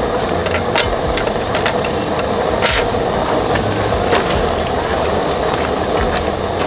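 Meat sizzling on an iron griddle over a campfire: a steady hiss with sharp wood crackles scattered throughout.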